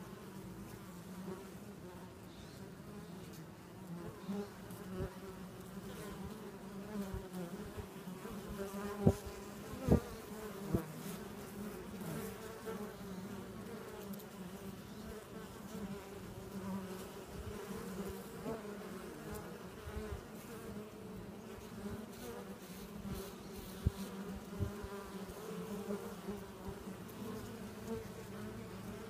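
Steady low hum of a dense honeybee colony clustered on the comb of a log hive. A few sharp knocks cut in, the loudest about nine and ten seconds in and again near twenty-four seconds.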